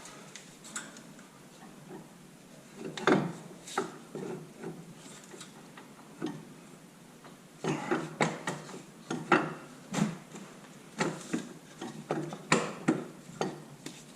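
Irregular clunks and knocks of a CV axle being worked into place by hand on a Nissan Rogue, a couple about three seconds in, then a quicker run of them from about eight seconds on.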